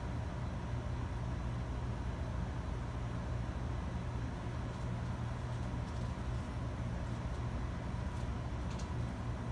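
Steady room noise of running computer and network equipment: a constant low hum with hiss and a faint steady high tone, a few faint ticks near the end.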